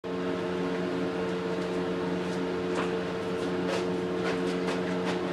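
Steady droning hum of a motor or appliance, made of several constant tones, with a few faint ticks scattered through it.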